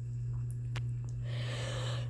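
A quiet pause in a coughing spell: a steady low hum and a couple of faint clicks, then a soft breath drawn in during the second half.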